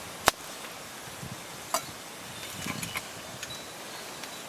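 Campfire under a grate, a few sharp pops and ticks of burning wood over a steady hiss; the loudest pop comes just after the start, another about two seconds in.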